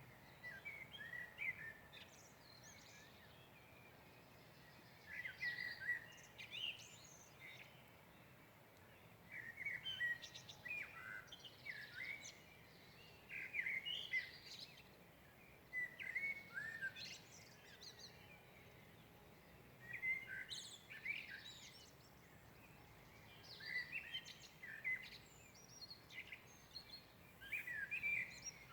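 Songbird singing at dawn in short phrases, one every three to four seconds with pauses between, over a faint steady background hiss.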